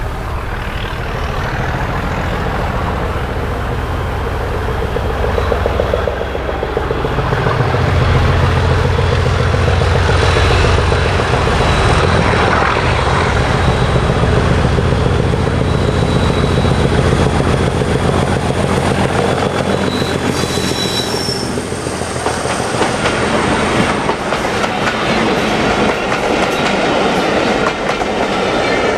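Class 37 diesel-electric locomotive's English Electric V12 engine growling under heavy power as it comes out from under the road bridge and passes, swelling louder about seven seconds in. The coaches behind then roll by with a clickety-clack of wheels over the rail joints.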